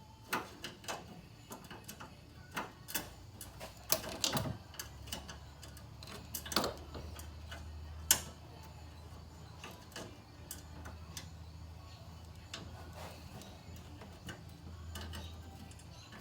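Irregular clicks and knocks of metal fan brackets and hand tools being handled, with a low steady hum coming in about four seconds in.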